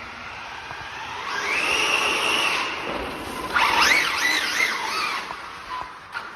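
Brushless electric motor and drivetrain of a 1/8-scale Maverick Quantum R Flux on-road RC car whining as it runs. The pitch rises and holds, then from about halfway through swoops quickly up and down as the throttle is worked.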